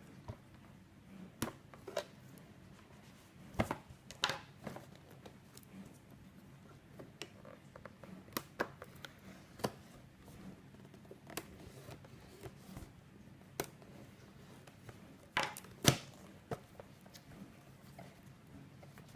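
Hands opening and handling a product box's packaging: irregular clicks, taps and light rustles, with two louder snaps close together about three-quarters of the way through.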